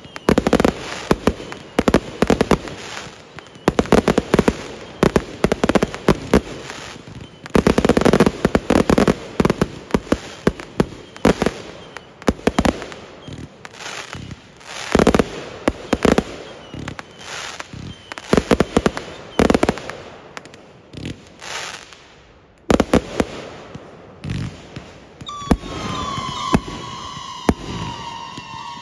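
A fireworks finale going off: rapid, dense volleys of sharp bangs and crackling reports, one after another, with a brief lull near the end. In the last few seconds a whistling tone that slides slightly down joins the bangs.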